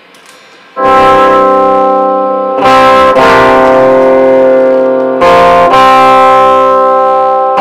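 Loud Stratocaster-style electric guitar through an amplifier, starting about a second in and playing long sustained chords that ring on, changing roughly every two to three seconds.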